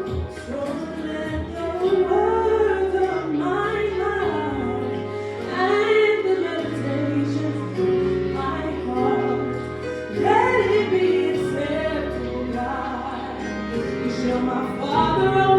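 Gospel singing by a vocal group, female voices to the fore, over a sustained accompaniment.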